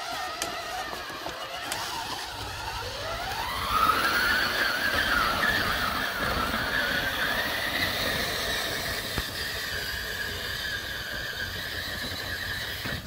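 Electric drive motors and gearboxes of a homemade four-wheel-drive Dune Racer ride-on whining. The whine rises in pitch about three seconds in as the vehicle speeds up, then holds as a steady high whine over a low rumble from the tyres on the uneven ground.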